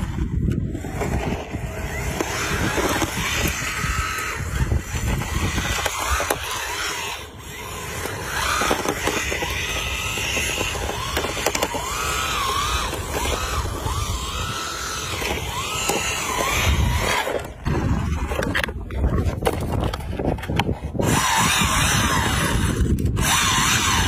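Remote-control toy car driving on a paved path. Its small electric motor whines, rising and falling in pitch with the throttle, over a steady rumble of its tyres rolling and scraping on the ground.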